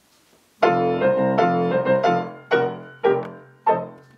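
Piano introduction: after a brief pause, about seven chords are struck in a rhythmic pattern, each ringing and decaying, the last one fading out near the end.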